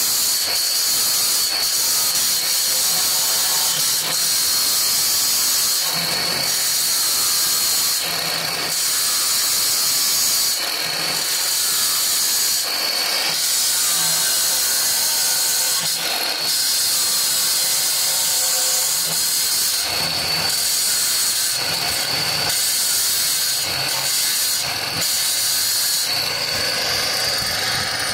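Handheld electric marble cutter cutting wet through a marble slab, with water from a hose fed onto the blade. It runs steadily with a high whine over a loud hiss, dipping and swelling every few seconds.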